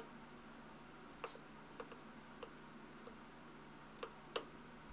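Light metallic clicks of a thin steel rod and small parts against a Mossberg 183T shotgun bolt as it is worked apart by hand: about seven faint, irregular ticks, the sharpest near the end.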